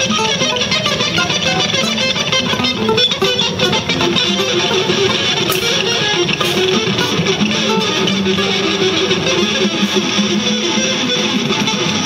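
Music played on plucked string instruments, running steadily with many quick notes.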